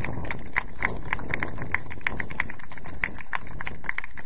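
Irregular sharp taps or claps, several a second, over a low wind rumble on the microphone.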